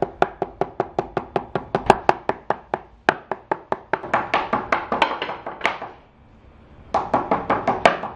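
Wooden rolling pin pounding thin slices of pork tenderloin flat on a wooden chopping board: rapid, even knocks, about five a second. They stop for about a second near the end, then start again.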